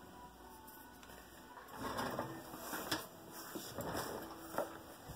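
Faint handling noise: rustling with a few sharp clicks and taps, starting about two seconds in after a quiet opening.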